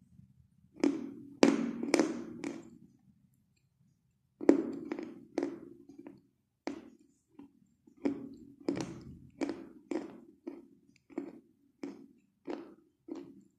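Close-miked chewing of a mouthful of orange chalk: a series of sharp, dry crunches, a few at first, then after a short pause a steady run of about one or two crunches a second.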